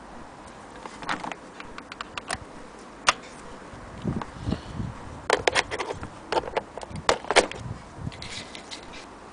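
Handling noise from an electric cord and its plastic plug: irregular clicks, taps and rubbing, with the sharpest clicks about three seconds in and again around seven seconds.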